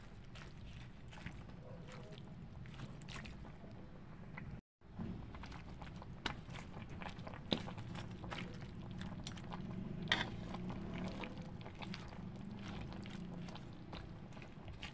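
Steel spatula stirring pechay and cabbage in a cooking pan: scattered clicks and scrapes of metal on the pan, with a few louder knocks, over a steady low background noise. The sound drops out briefly about five seconds in.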